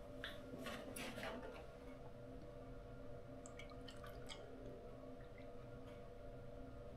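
Milk being poured from a plastic jug into a plastic measuring cup, faint, with a few light handling clicks in the first second or so, over a steady faint hum.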